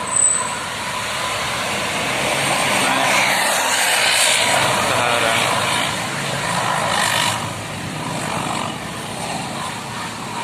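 Tour bus passing close by: its engine running and its tyres on the road in a loud wash of noise that swells about four seconds in and again about seven seconds in.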